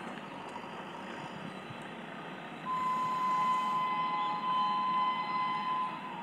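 Train horn held in one steady blast of about three seconds, starting about three seconds in, over a steady background hiss.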